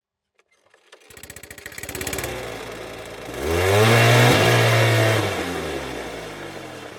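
Autorickshaw engine catching about a second in and chugging at idle, then revved up once in the middle and let fall slowly back toward idle.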